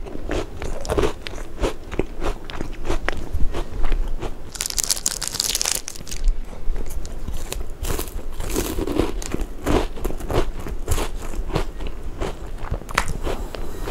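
Close-miked crunching and chewing of a Kinder Bueno bar, its crisp wafer crackling with each bite and chew. A brief, louder crackling burst comes about five seconds in.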